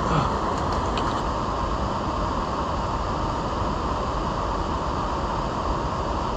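Water rushing over a low concrete weir: a steady, unbroken rush with no let-up.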